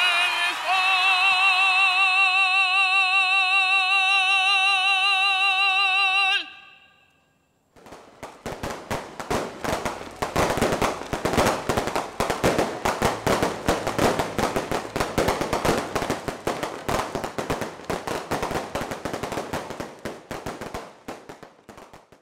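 A tenor holds a long final sung note with vibrato, which cuts off about six seconds in. After a second of quiet, aerial fireworks crackle and pop densely for the rest of the stretch.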